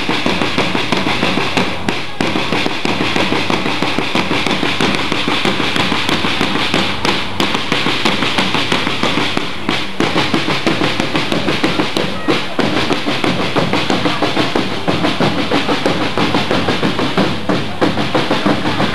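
Parade drums beating a steady, rapid rhythm.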